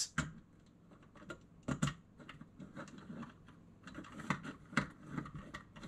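Quiet, irregular clicks and taps of a digital microscope's lens and light assembly being handled and fitted together by hand.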